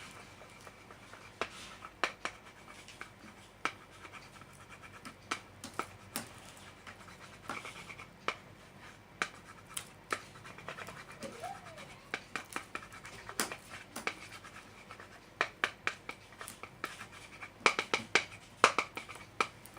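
Irregular scraping, clicks and taps from handling the slime-making container and tools, with a denser run of louder clicks near the end.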